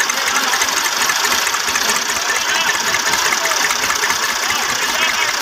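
Tractor diesel engine running hard and steady under heavy load, pulling a trolley overloaded with sugarcane that is bogged in sand.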